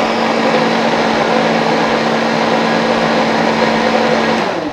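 High-speed countertop blender running steadily, churning a thick raw walnut, kiwi and matcha mousse down with a tamper until no lumps remain. It is switched off near the end and the motor winds down.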